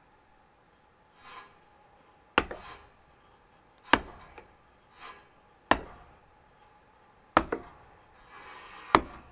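Axe chopping firewood on a chopping block: five sharp blows, about one every second and a half, each ringing briefly. Fainter knocks of split wood between the blows.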